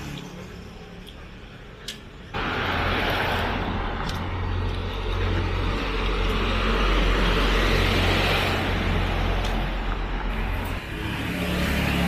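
Street traffic: a light truck's engine rumble and tyre hiss swelling as it comes past, loudest midway. The sound starts abruptly about two seconds in, after a quieter stretch.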